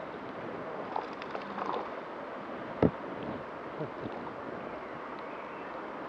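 River water rushing and lapping around a camera sitting at the water's surface, with small gurgles and splashes and one sharp thump about three seconds in.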